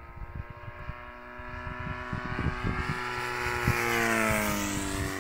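A radio-controlled model aircraft's motor making a low pass: its steady whine grows louder as the aircraft approaches, then drops in pitch as it goes by, about four seconds in. Wind buffets the microphone throughout.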